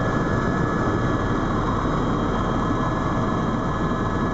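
Eurocopter EC130 Ecostar helicopter in flight, heard from inside the cabin: its turbine engine and rotor make a loud, steady rushing noise with several high whining tones held at a constant pitch.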